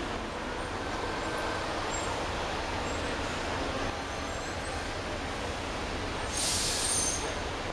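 Steady rumble of road traffic heard from inside a car stopped in a queue, with a sharp hiss lasting about a second near the end.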